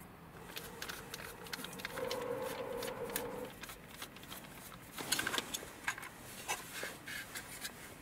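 Screwdriver taking small screws out of the plastic housing of a Toyota RAV4 power window master switch: a run of light clicks and plastic handling knocks, with a brief squeak about two seconds in.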